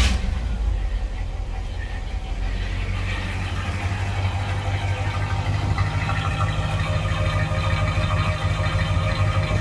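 1984 Chevy C20 square-body truck's carbureted gasoline engine idling steadily, exhausting through its new muffler and tailpipe.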